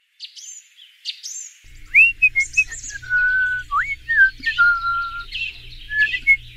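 Birds chirping and whistling: quick rising and falling calls mixed with a few longer held whistles, starting about a quarter second in. A faint low steady hum joins underneath about one and a half seconds in.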